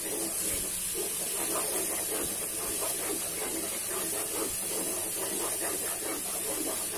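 Ground chili-and-spice paste with an egg frying in a nonstick wok with a steady sizzle, while a wooden spatula stirs and scrapes through it in quick repeated strokes, about two to three a second.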